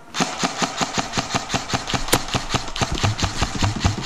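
Airsoft rifle firing a long, rapid string of shots, about seven or eight sharp clicks a second, starting just after the beginning.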